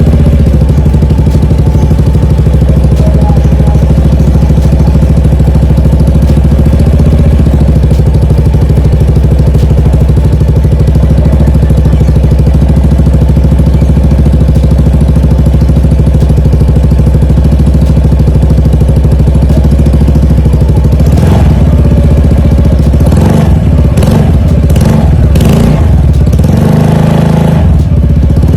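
Yamaha NMAX scooter's single-cylinder engine idling steadily through a Burnout full-system aftermarket exhaust. In the last several seconds it is revved in a series of short throttle blips.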